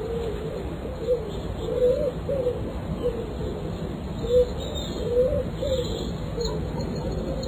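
Pigeon cooing: a series of short, low coos, roughly one a second, each note rising and falling slightly in pitch.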